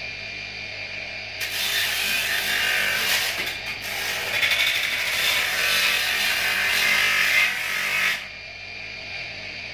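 Bench grinder motor running while a metal motorcycle mudguard is pressed against its spinning wheel, giving a harsh rubbing, grinding noise. The noise starts about a second and a half in and stops about eight seconds in, leaving the motor's lower hum.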